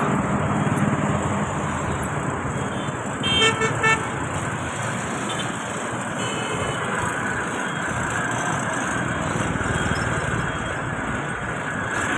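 Road vehicle running steadily, with a horn tooting in a few short blasts about three and a half seconds in and faintly again a few seconds later.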